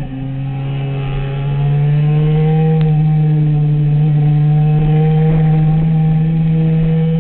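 Sport motorcycle engine running hard at high revs, heard from an onboard camera. The engine note climbs over the first couple of seconds, then holds steady.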